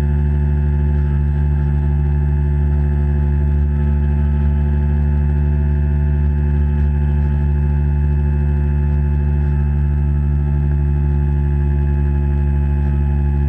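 The electric motor of a radio-controlled boat running at a steady speed, heard underwater as a loud, unchanging drone of several tones.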